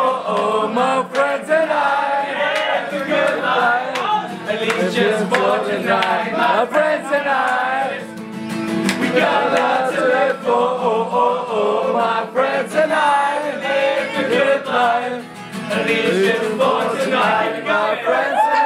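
A roomful of people singing along together with a strummed acoustic guitar.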